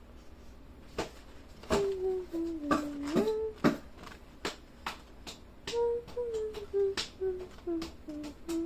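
A person humming softly: a gliding phrase, then a tune of short notes stepping downward. Irregular sharp clicks or taps run alongside.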